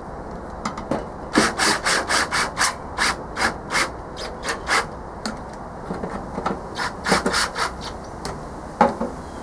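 DeWalt cordless drill with a long driver extension tightening the motor-mount bolts on a blower housing. It makes a series of short, sharp rasping clicks, some in quick runs of about four or five a second and others one at a time.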